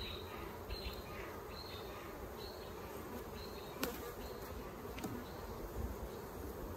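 Honey bees buzzing around an open hive, a steady hum. Two sharp clicks about a second apart come just past the middle as the wooden frames are handled.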